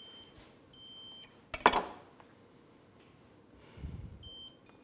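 A kitchen appliance gives three short, high-pitched electronic beeps. About a second and a half in there is a sharp, ringing clatter of kitchenware, the loudest sound here. A dull knock follows near the end.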